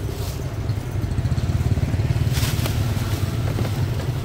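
A motorbike engine running steadily at idle, a low, even drone. A short rustle of plastic bags about two and a half seconds in.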